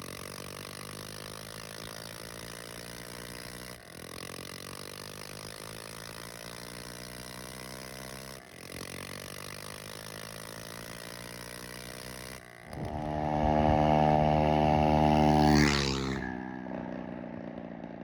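Honda CT110 postie bike's single-cylinder four-stroke engine running hard under throttle, its note climbing slowly in pitch; two brief breaks cut it into separate runs. About 12.5 s in it becomes much louder and stronger, easing off again near the end.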